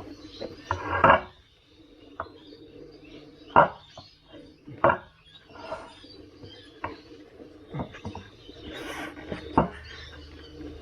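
A rubber tyre being worked by hand over the rim of an electric unicycle wheel, the bead pushed under the rim lip: irregular short knocks and rubbing, loudest about a second in and again around three and a half and five seconds.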